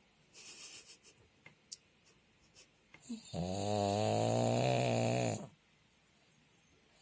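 Pug snoring in its sleep: a soft, breathy breath in the first second, then about halfway in one long, very loud snore on a steady low pitch, lasting about two seconds and cutting off sharply.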